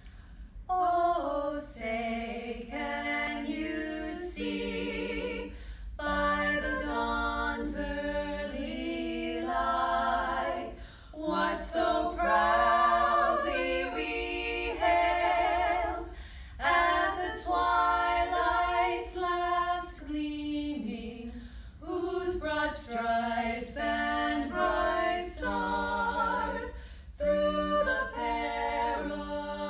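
Three women singing a national anthem a cappella in harmony, starting about a second in, phrase by phrase with short breath pauses.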